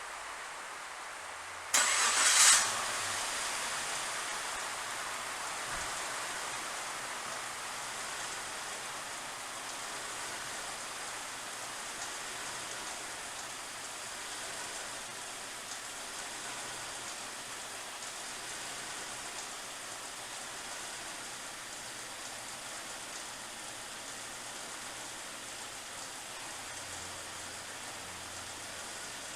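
The 2.5-litre V6 of a 1999 Suzuki Grand Vitara cranks briefly and starts about two seconds in, then settles into a steady idle. The engine has a misfire that is being diagnosed, with the cylinder 2 injector under suspicion.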